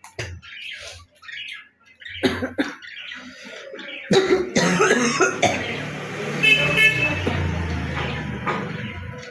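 A woman coughing and hawking up phlegm that has built up in her throat for days. A few short coughs come first, then a longer, harsher stretch from about four seconds in. A vehicle horn honks briefly about two-thirds of the way through.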